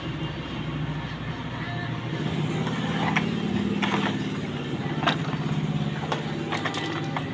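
An engine running steadily, a little louder a few seconds in, with several sharp clicks or taps over it.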